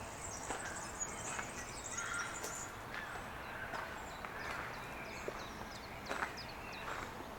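Birds chirping and calling over a faint outdoor hiss, in many short high chirps, with a dense high trill in the first couple of seconds.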